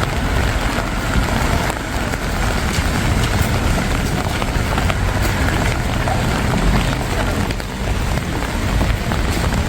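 Heavy rain falling on wet cobblestones, a steady even hiss with scattered drop ticks and a low rumble underneath.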